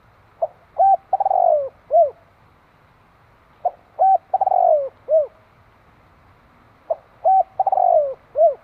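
Spotted dove crowing, its cooing song given three times about three seconds apart. Each phrase is a short note, a held coo, a long falling coo and a closing short coo.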